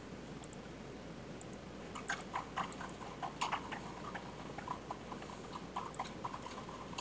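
Faint, irregular clicks of a computer mouse, starting about two seconds in and coming in quick scattered runs, as lines are picked one after another in the CAD program.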